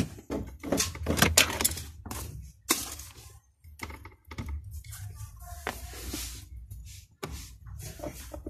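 Screwdriver working at the plastic dashboard trim: scattered clicks, a few sharp knocks and scraping as the trim panel's screws are taken out.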